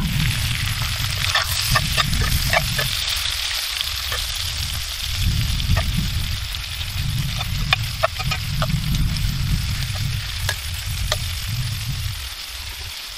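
Steak pieces sizzling in a cast-iron skillet over a charcoal grill, with metal tongs clicking against the pan as the meat is stirred and turned. A low rumble comes and goes underneath.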